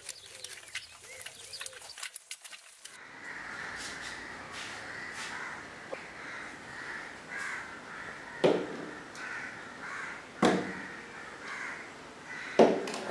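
Crows cawing three times, about two seconds apart, over steady outdoor background ambience that comes in about three seconds in.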